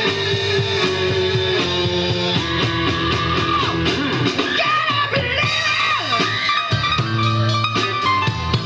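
Live rock band playing, with electric guitar to the fore over a continuous band backing.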